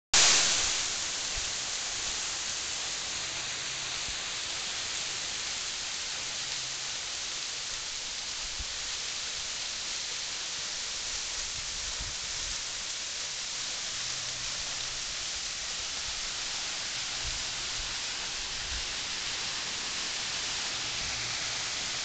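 Small waterfall pouring down a steep moss-covered rock face: a steady rushing hiss of falling water, with a brief louder rush at the very start.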